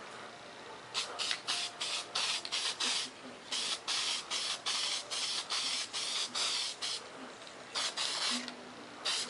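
Aerosol spray-paint can hissing in short bursts, about three a second, as a quick light coat is sprayed on, with a brief pause near the end.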